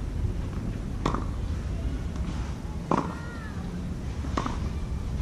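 Tennis ball being hit back and forth in a rally on a clay court: three sharp pops about a second and a half apart, over a steady low rumble.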